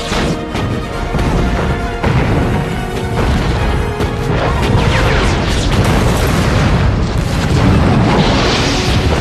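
Film score music playing over battlefield sound effects: artillery shells exploding with heavy booms, and a large fiery blast about eight seconds in.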